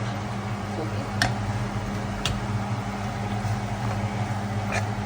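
Steady low machine hum with three short light clicks.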